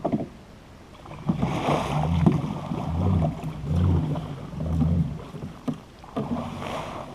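Water splashing and sloshing against a fishing kayak, with four low thumps about a second apart in the middle and a short knock at the very start.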